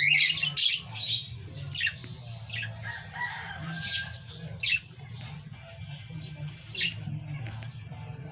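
Cockatiel calls: a string of short, harsh chirps at uneven intervals, loudest at the start, over a steady low hum.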